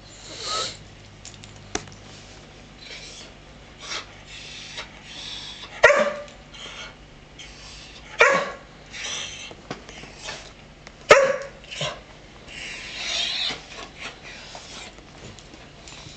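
A dog barking three times, a few seconds apart, with quieter noises in between, while begging for attention.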